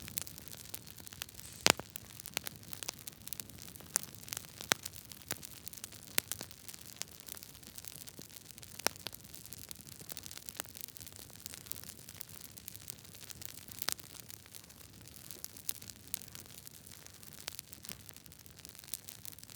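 Campfire crackling: burning wood snapping in irregular sharp cracks over a steady hiss, with a few louder snaps, the loudest about two seconds in.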